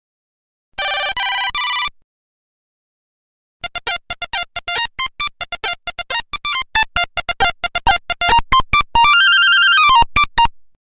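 Nokia 1100 monophonic ringtone tunes made of single electronic beeps. A short phrase of beeps about a second in, then after a pause of nearly two seconds a long, fast run of short beeps stepping up and down in pitch, with one held note near the end.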